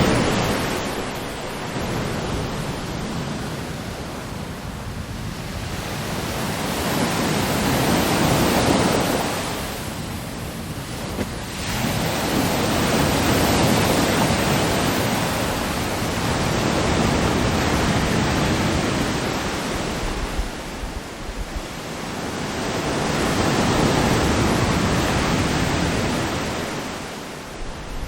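Ocean waves breaking and washing in slow surges, a swell of surf noise every several seconds, generated as an AI sound effect.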